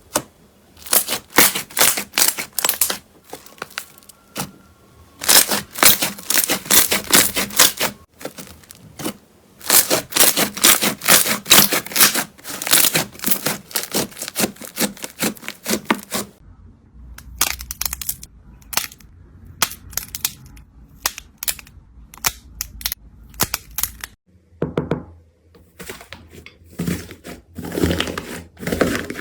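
Slime being pressed and squished, giving bursts of rapid crackling and popping clicks; from about halfway through the sounds turn sparser and softer.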